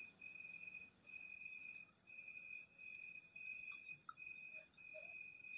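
Faint, steady high-pitched trilling of a cricket, broken by short gaps about twice a second.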